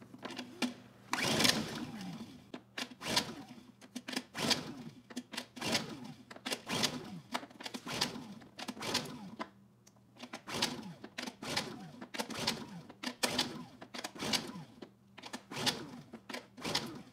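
Honda EU2000i inverter generator's recoil starter pulled about a dozen times in a row, each pull a quick whirring rush that winds down as the engine cranks over without firing. The engine shows no signs of life, which the mechanic puts down to it being flooded earlier.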